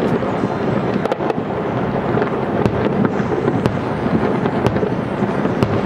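Aerial fireworks shells bursting one after another in a steady rumble of overlapping booms, with sharp cracks standing out every second or so.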